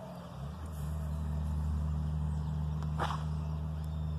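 A steady low mechanical hum, with one short, sharp sound about three seconds in.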